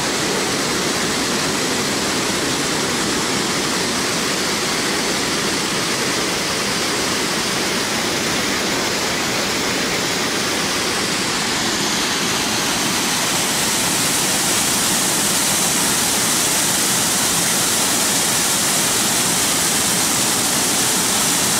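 Creek water rushing over a low mill-dam spillway and shallow riffles, a steady roar of falling water that grows a little louder and brighter about halfway through.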